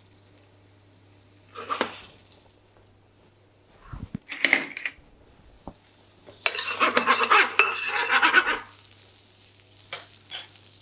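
Steel frying pan of roasted cauliflower handled on a hob: metal knocks of pan and utensils, a rattling, sizzling stretch of about two seconds past the middle as the pan is shaken, and two sharp clinks near the end.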